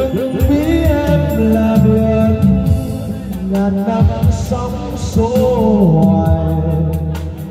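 A man singing into a microphone through a PA speaker over a karaoke backing track with a steady beat.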